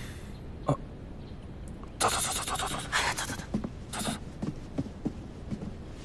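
Rustling and shuffling of people moving about, with a few light knocks. A sudden burst of rustling about two seconds in runs for over a second, then comes a shorter burst and scattered small taps.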